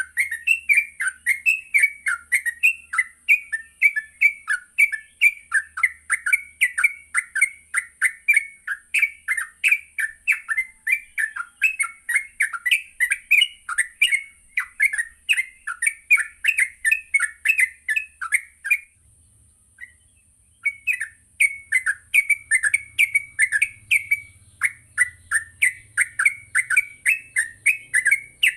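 Yellow-vented bulbul (trucuk) in full song, giving a fast, unbroken run of short chirps, about three a second. Near two-thirds of the way through it breaks off for about a second and a half, then resumes.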